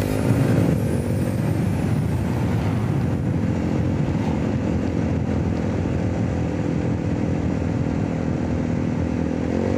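Motor scooter's engine running steadily at cruising speed under the rider, with wind and road noise. Its note wavers briefly just after the start and again near the end.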